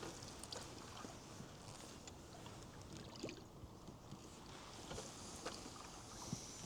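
Faint water sounds of a cedar-strip canoe being paddled: soft paddle splashes and drips, with a few short light ticks scattered through.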